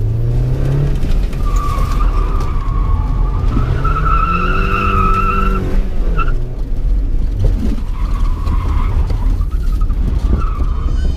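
Car engine revving hard while the tyres squeal in long screeches; the engine's pitch climbs twice.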